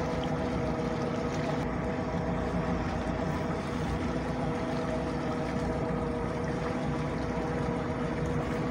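Boat's outboard motor running steadily at trolling speed, a constant drone with water washing past the hull.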